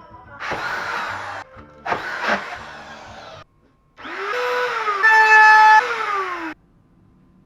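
Three loud electronic whoosh effects. The last carries a buzzy synth tone that rises, holds and slides back down before cutting off suddenly.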